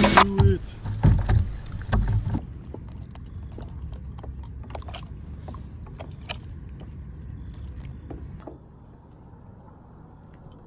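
Low wind and water rumble on an action camera mounted on an inflatable paddleboard, with a few heavier bumps in the first two seconds. Then many light clicks and taps of fishing tackle being handled as a soft plastic swimbait is rigged on a hook, dying away about two seconds before the end.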